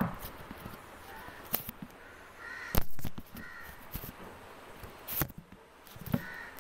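Crows cawing several times in the background. Sharp knocks and rubbing come from hands kneading dough on a plate right by the microphone, the loudest knock a little before halfway.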